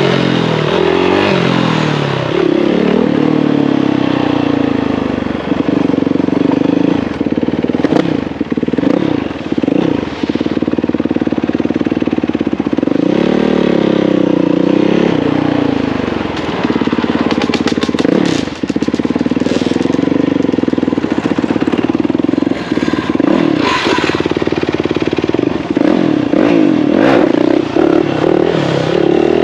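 Motorcycle engine running and revving, its pitch rising and falling over and over, with a higher rev swell about halfway through.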